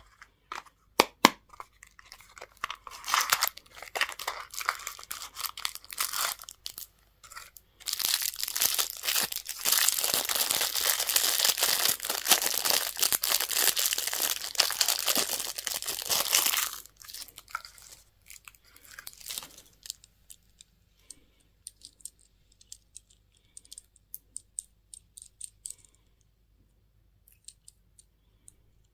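Candy or toy packaging being torn open and crinkled, with scattered clicks and taps. A dense stretch of tearing and crinkling runs for about nine seconds in the middle, then gives way to sparse light clicks and ticks.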